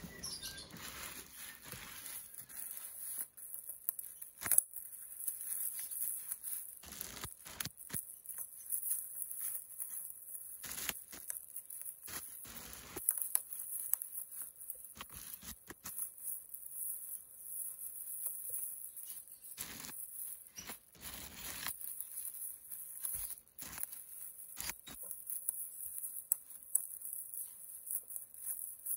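Black plastic mailer bag crinkling and rustling in irregular bursts as it is torn open by hand and cut with scissors, over a steady high hiss.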